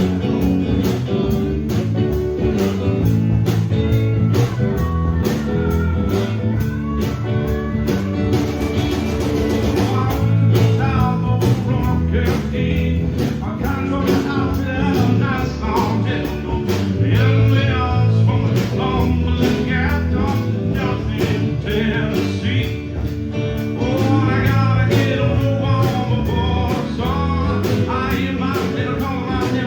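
A band playing a blues-rock song with guitar and a steady beat. A singer comes in about ten seconds in and sings over it.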